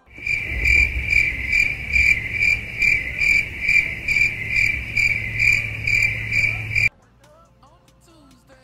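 Cricket chirping sound effect: an even, high chirp a little over twice a second that starts suddenly and cuts off abruptly after about seven seconds, the comedy 'crickets' cue for an awkward silence.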